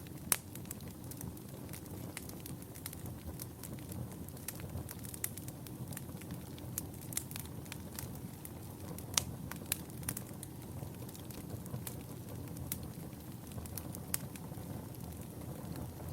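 Wood fire burning in a fireplace: a steady low rush of flames with frequent sharp crackles and pops, a louder pop about half a second in and another about nine seconds in.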